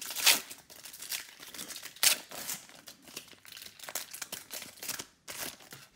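Foil Pokémon booster pack wrapper being torn open and crinkled by hand, in a run of sharp rustling bursts, the loudest about a quarter second in and again about two seconds in.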